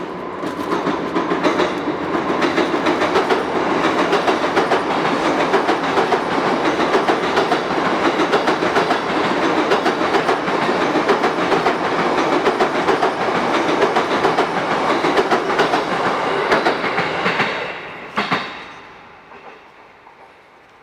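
Train passing close by, its wheels clattering steadily over rail joints for about 18 seconds; the last car passes with a final clatter and the sound quickly dies away.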